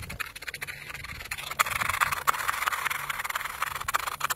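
Mega Mouth bowfishing reel's drag clicking rapidly as a hooked fish runs and pulls line off the spool. It grows louder and denser about a second and a half in.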